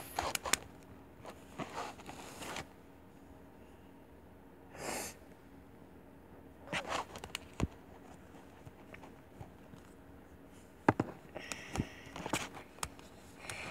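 Handling noises from a plastic baby doll and its clothes: scattered light clicks and knocks, a short swish about five seconds in, and fabric rustling near the end.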